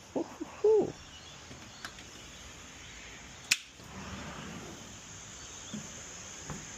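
A man's short vocal whoops in the first second, then a single sharp click about halfway through. Under both runs a faint, steady high chirring of insects such as crickets.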